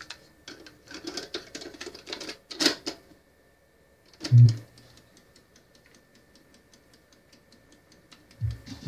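Piano-key transport buttons of a CCE SHC 2500 cassette deck being pressed: a string of mechanical clicks and clunks, with one heavy clunk about four seconds in. Faint regular ticking and a thin steady whine follow as the tape mechanism runs, and music starts near the end.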